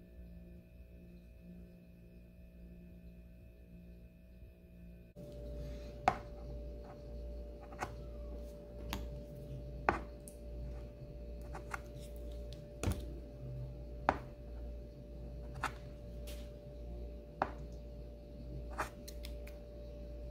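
Sharp clicks and taps every second or two as oil paint tubes are handled and squeezed out onto a wooden palette, over a steady humming tone. The clicks start about five seconds in, where the background also grows louder.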